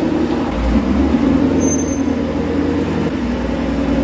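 Supercharged Ford Mustang engine running at low speed as the car is driven slowly into the garage, a steady rumble that grows a little deeper about half a second in.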